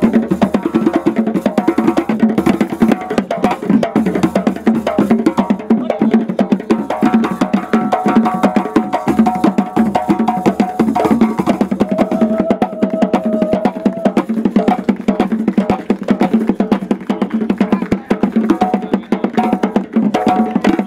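Live hand drums, tall standing drums played by hand, beating a fast, dense dance rhythm. A few held tones sound over the drumming in the middle.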